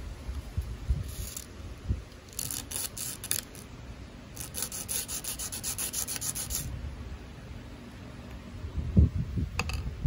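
A small part rubbed back and forth by hand on a sheet of sandpaper: a few scraping strokes, then a quicker run of about seven strokes a second that stops about two-thirds of the way through. A couple of low thumps and a sharp click come near the end.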